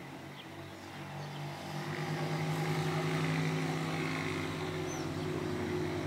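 A steady low engine hum with a fixed pitch grows louder from about a second and a half in and then holds. A few faint, high, brief bird chirps sound above it.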